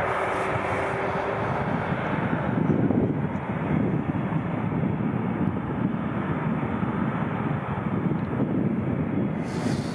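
Airbus A380's four jet engines running at low power on the ground: a steady rumble and hiss, with a faint whine that fades out about a second in.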